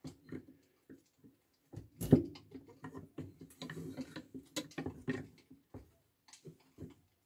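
AR-15 armorer's wrench clicking and knocking against the castle nut and receiver as its spanner end is fitted onto the nut. There is one louder knock about two seconds in, then a run of small clicks.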